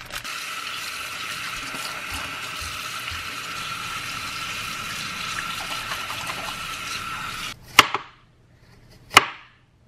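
Kitchen tap running steadily into a bowl in a steel sink; it cuts off after about seven and a half seconds. Then two sharp knocks of a chef's knife slicing garlic cloves on a wooden cutting board, about a second and a half apart.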